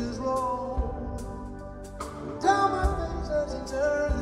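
Live band music from an audience recording. A melody line bends over sustained chords, with a bass drum hitting every second or two.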